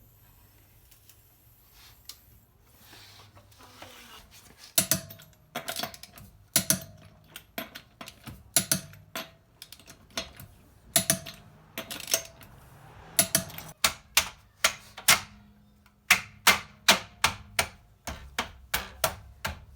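A long run of sharp knocks or taps, irregularly spaced and sometimes in quick pairs, several with a short metallic ring, starting about five seconds in: hand-tool work on the car.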